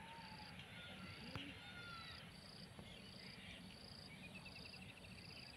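Faint insect calls: a high chirp repeating about every three-quarters of a second, with a few faint bird calls and a short trill near the end, over a low rumble.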